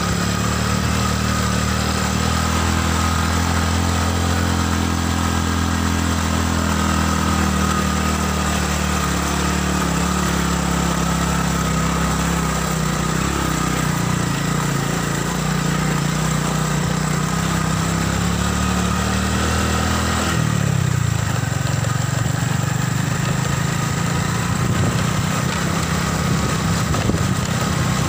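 Small motorcycle engine running steadily at low speed on a rough dirt road. Its note drops about twenty seconds in.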